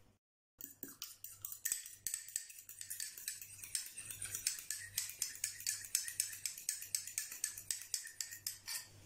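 A metal fork beating egg in a small ceramic bowl: rapid, even clinks against the bowl, about five a second, starting about half a second in.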